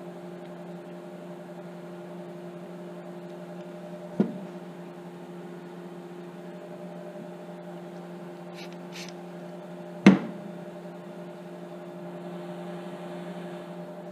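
Steady low electrical hum throughout, with two sharp knocks of objects set down on a workbench, about four seconds in and again about ten seconds in. Two short hisses of an aerosol spray can come just before the second knock.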